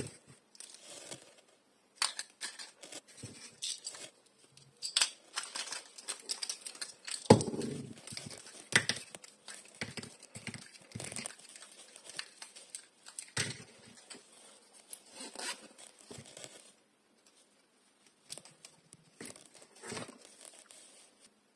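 Close-up paper crinkling and tearing as hands unwrap small paper-wrapped cone packages, a run of irregular crackles and rustles that thins out and gets quieter near the end.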